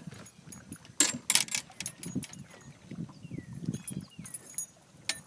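Handling noise of a landing net and fishing gear as a bass is lifted out of the net onto the boat deck: a quick clatter of sharp clicks and rattles about a second in, then soft irregular thuds and rustling. Two faint falling chirps come near the middle.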